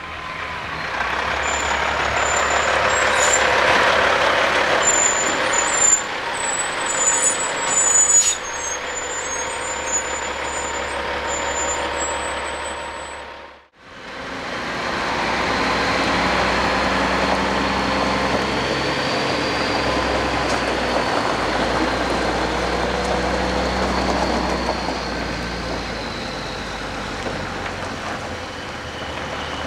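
Heavy-haul diesel tractor-trailer running on the road, loudest about three to four seconds in as it passes, with high squeaks and a couple of sharp clicks over the next several seconds. After a brief cut-out about halfway, the truck's engine runs steadily as it moves slowly.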